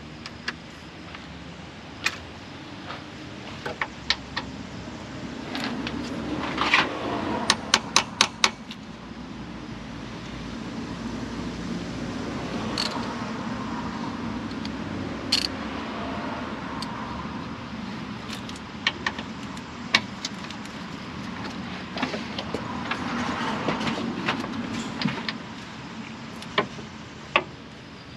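Metal hand tools clicking and knocking as a rusted 10 mm bolt is worked at under a car, with a quick run of about six sharp clicks near eight seconds in. A low rushing noise swells and fades a few times underneath.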